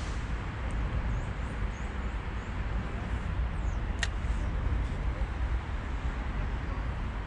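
Steady low rumble of outdoor background noise, with a single sharp click about four seconds in.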